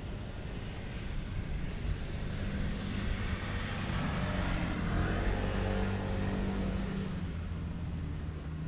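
A motor vehicle passing: engine and road noise growing louder to a peak about halfway through, then fading away.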